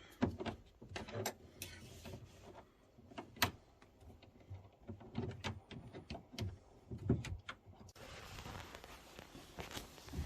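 Irregular clicks and knocks of tools and metal parts being handled while a replacement pump is fitted in a combi boiler. A steady hiss comes in about eight seconds in.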